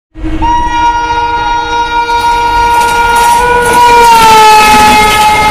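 Indian Railways electric locomotive sounding one long, continuous air horn as it approaches at speed, over the low rumble of the train. A little under four seconds in, the horn's pitch drops slightly as the locomotive passes.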